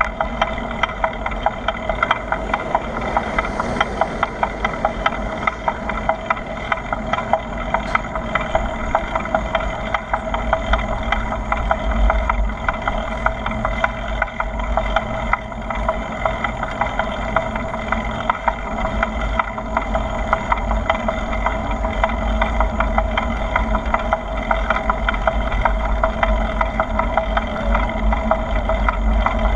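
Steady wind rushing over the microphone, with the dense rattle and road noise of a bicycle being ridden.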